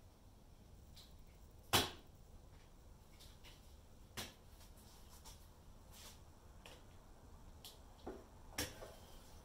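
Scattered knocks and clicks of hand work at a motorcycle's fuel tank, the loudest about two seconds in, with two more close together near the end.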